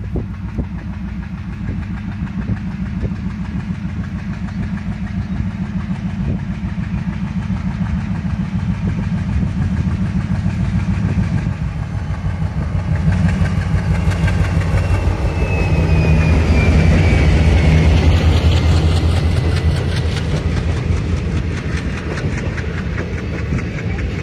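Diesel locomotive of an Indian Railways express chugging as it pulls away from a station, its engine growing steadily louder as it approaches and passes, loudest about two-thirds of the way in. Near the end the coaches roll past with wheels clattering over the rail joints.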